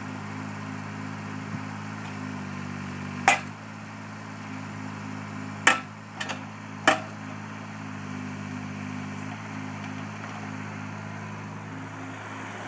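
Cat 301.8 mini excavator's diesel engine running steadily. Five sharp metal knocks sound over it: one about three seconds in and a quick group of four a couple of seconds later.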